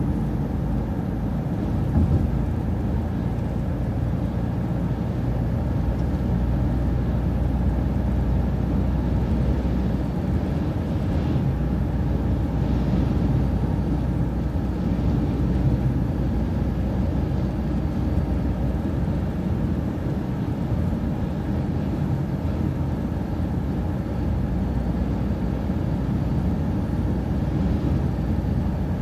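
City transit bus driving, heard from on board: a steady low engine drone with road noise, with a brief knock about two seconds in.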